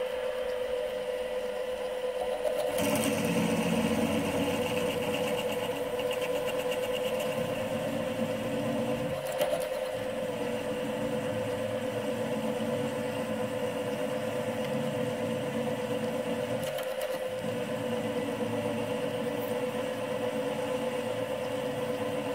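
Small benchtop mill running with a steady hum while a twist drill cuts a set-screw hole in a metal block. The cutting noise comes in a few seconds in and eases off briefly twice, about a third of the way in and again about three-quarters through.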